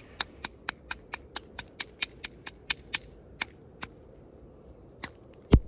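Rapid light tapping of a knapping bopper against the edge of a hornstone blank, about four or five sharp clicks a second, working at a crack in the stone. The taps slow to a few spaced ones, then one harder strike comes just before the end.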